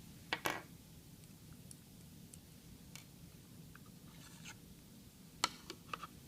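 A few small sharp clicks and a brief light scrape from a laptop hard drive and its mounting bracket being handled after its screw is taken out.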